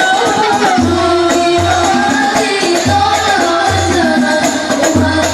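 Banjari ensemble performing a sholawat: voices singing together over a pattern of repeated low frame-drum strokes.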